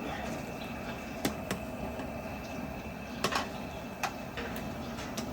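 Five or so sharp clinks and knocks of serving utensils, spaced irregularly over a steady background hum.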